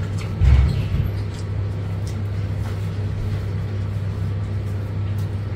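A steady low machine hum, with a dull thump about half a second in and a few faint clicks.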